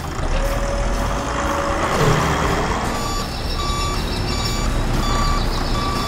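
Backhoe loader's diesel engine running with a low rumble, with a steady hydraulic whine as the front loader raises its bucket of rocks, dropping in pitch about two seconds in. From about three seconds in, its reversing alarm beeps about twice a second as the machine backs up.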